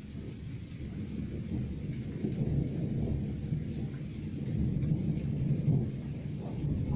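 Thunder rumbling low from a passing thunderstorm, growing louder about two seconds in and swelling again past the middle.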